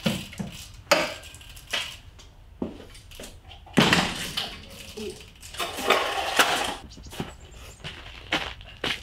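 Metal clanks and knocks of a telescope mount and tripod being handled and carried, an irregular clatter with the loudest burst about four seconds in. Footsteps crunch on packed snow near the end.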